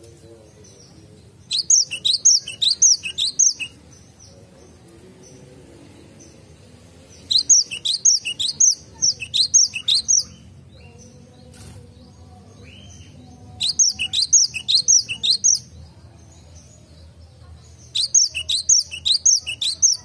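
Cinereous tit singing: four bouts of quick, repeated high notes, about four a second, each bout lasting two to three seconds, with pauses of a few seconds between.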